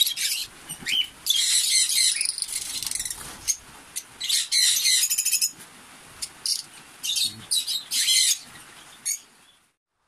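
African lovebirds in a wire aviary giving repeated high-pitched calls, with wings flapping, as one is caught by hand. About five seconds in there is a fast rattling run of calls. The calls stop about half a second before the end.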